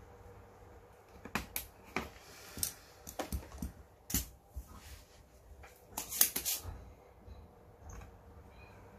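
Irregular light clicks and taps of handling noise, scattered through, with the loudest cluster about six seconds in.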